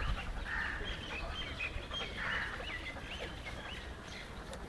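Animal calls: German shepherds giving a few short hoarse yelps, about half a second in and again about two seconds in, over many quick high chirps of birds.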